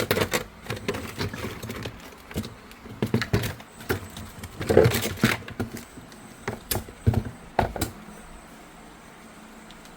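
Irregular knocks, clicks and clatter of hard parts being handled, for about eight seconds, then only a faint steady hum.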